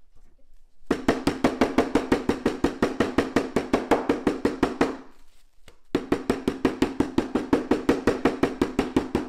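Metal meat mallet pounding a veal cutlet wrapped in plastic wrap on a wooden butcher block, about six quick blows a second, flattening it thin for scaloppine. The blows start about a second in, stop for about a second while the cutlet is flipped, then go on.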